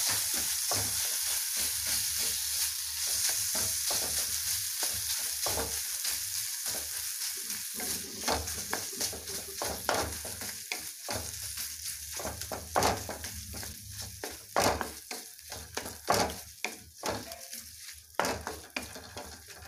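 Khoya frying in ghee in a brass kadhai: a steady sizzle, with a spatula stirring and scraping it around the pan. The sizzle slowly dies down, and from about halfway on the separate scraping strokes stand out more.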